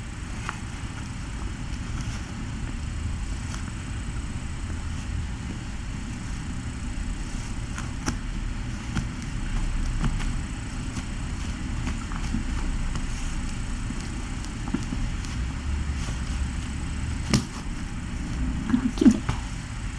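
Steady low rumble and hiss of room noise with a faint high whine, broken by scattered small taps and clicks and one sharper click near the end.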